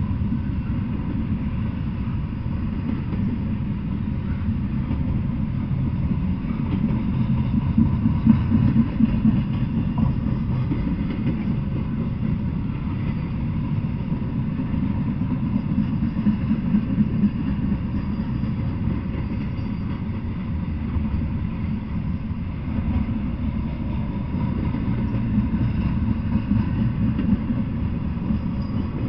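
Double-stack intermodal freight train rolling past at a steady speed: a continuous low rumble of steel wheels on the rails.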